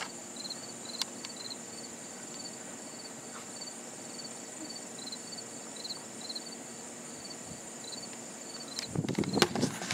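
Insects in the roadside grass chirp about twice a second over a steady high buzz. Near the end, louder footsteps on the paved road start up.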